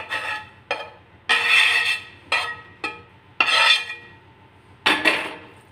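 A metal spoon scraping cooked stuffing out of a pan onto a paratha: a run of short metal-on-metal scrapes with a faint ring, two of them longer, at about a second and a half and three and a half seconds in.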